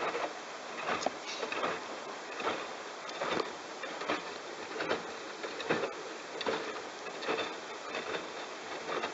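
Bosch washing machine drum tumbling a load of wet towels during the wash, giving a rhythmic swish and slosh about once a second over a faint steady high tone.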